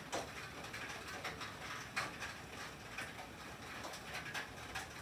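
Rain and sleet falling on a tin roof: a steady patter of drops on the metal, with irregular sharper taps and ticks from sleet pellets and heavier drops, the loudest about two seconds in.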